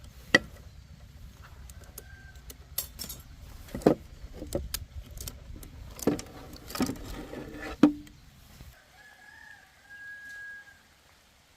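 A series of sharp metallic clinks and knocks from handling tools and parts, over a low rumble that cuts off suddenly, then a rooster crowing once near the end.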